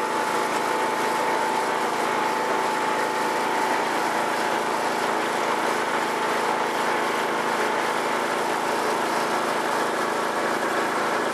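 Riding lawn mower engine running steadily at an even speed, with a faint thin whine over it during the first few seconds.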